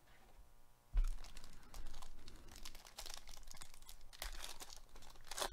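Foil wrapper of a 2021 Panini Chronicles baseball card pack crinkling and tearing as it is ripped open by hand, after a dull thump about a second in.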